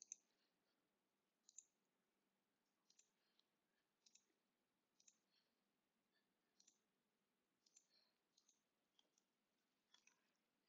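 Faint computer mouse clicks over near silence, roughly one every second, several of them in quick pairs, as faces of a 3D model are selected.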